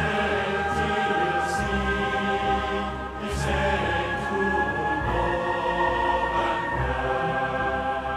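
Amateur choir singing an anthem in long held chords, the harmony shifting about three seconds in and again about five seconds in.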